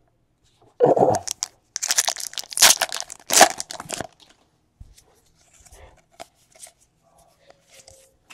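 Wrapping on a pack of trading cards being torn open and crinkled: a sharp rip about a second in, then a couple of seconds of tearing and crinkling, followed by faint light clicks of handling.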